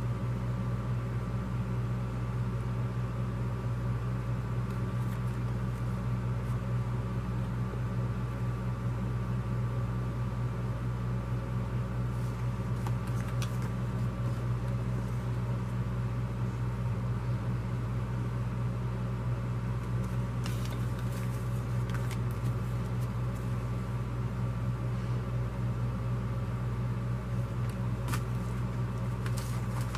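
Steady low electrical or mechanical hum without a break, with a few faint rustles of paper flyers being handled around the middle and near the end.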